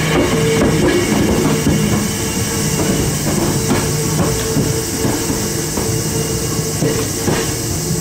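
Hakone Tozan Railway electric train (3000-series car coupled to a 2000-series pair) running by, with a steady motor hum and irregular clicks and knocks of the wheels on the rails.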